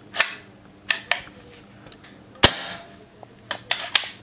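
Diana Stormrider .177 PCP air rifle firing once, a sharp pop about two and a half seconds in. Several lighter snapping clicks from the rifle's action come before and after the shot.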